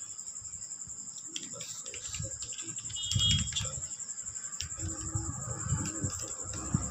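Crickets chirring steadily in a fast, pulsing trill. Over it come light taps of fingers on calculator keys and a low murmur of voices.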